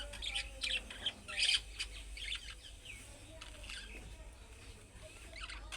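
Budgerigars chirping and warbling in quick, short calls, busiest in the first two seconds and again near the end.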